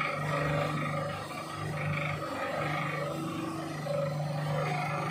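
Sachet-shredding grinder, driven by a 5000-watt electric motor through a WPA 120 worm gearbox, running under load as it chews plastic shampoo and lotion sachets. A steady low drone with rough grinding over it that swells and eases.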